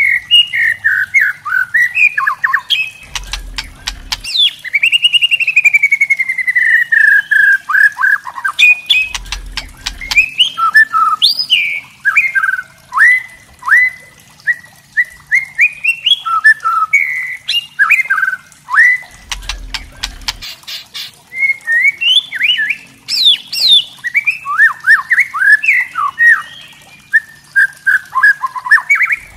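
White-rumped shama singing and calling in quick, varied phrases of whistles mixed with sharp clicking notes, with one long falling whistle a few seconds in.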